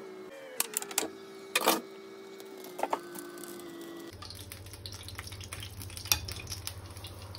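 A steady hum with a few sharp clicks and knocks of kitchenware. Then, about four seconds in, a metal spoon stirs and scrapes thick pakora batter in a ceramic plate: a quick run of small clicks and scrapes, with one louder knock.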